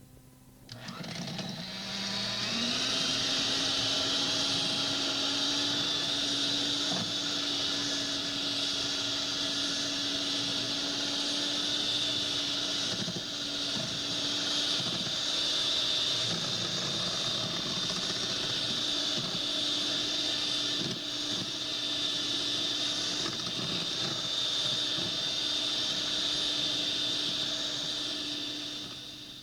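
A motor-driven machine winding up, its pitch rising over about two seconds, then running steadily with a high whine until it stops just before the end.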